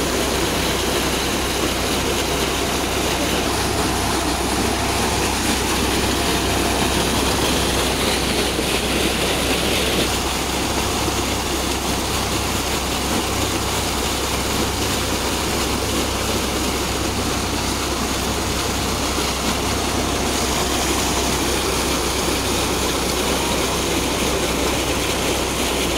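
Thick jet of water from a tractor-driven tubewell pump pipe pouring steadily into a concrete tank, a continuous rushing splash. Under it the tractor engine runs steadily, sped up to drive the pump. The newly bored well is being pumped for the first time under strong pressure.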